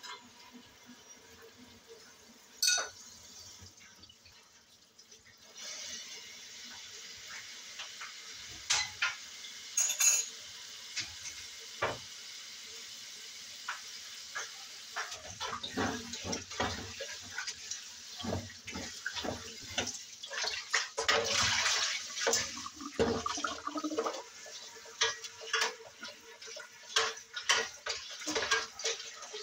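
Water running from a flexible-hose kitchen tap into a stainless steel sink while dishes and cutlery are washed. A single knock comes about three seconds in, the water starts a few seconds later, and clinks and clatters grow busy and frequent through the second half.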